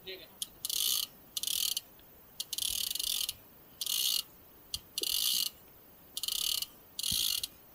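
Fishing reel's drag buzzing in short bursts, about once a second, as a big fish on the line pulls line off against it, with a few small clicks in between.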